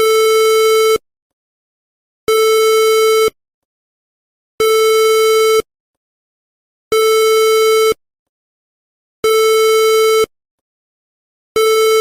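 Swedish emergency alert warning tone: a loud, buzzy, steady-pitched beep about a second long, repeating at a regular interval with a silent gap of just over a second, six times.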